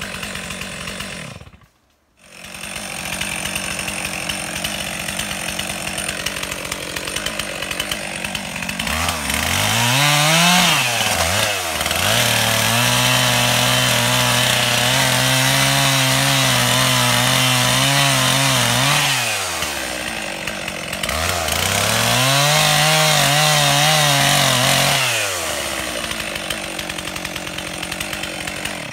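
Two-stroke chainsaw running at idle, with a brief break about two seconds in. About nine seconds in it revs to full throttle and holds there for several seconds while sawing through a small tree near its base. It drops back to idle, revs up again for a few seconds, and settles back to idle.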